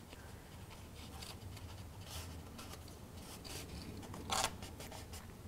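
Cardstock panels rustling and rubbing softly as they are handled and pressed together edge to edge, with one louder brief scrape about four seconds in.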